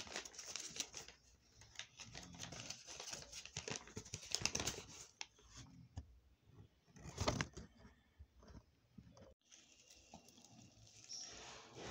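A paper wrapper and a thin plastic bag crinkling and rustling as a burger is unwrapped by hand, in irregular crackles that are loudest around the middle and thin out near the end.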